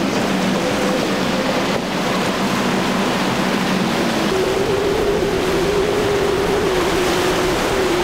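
Triple 350 hp outboard motors running at high speed, a steady drone over the rush of the wake and the sea. About four seconds in the engine tone steps up higher and holds there.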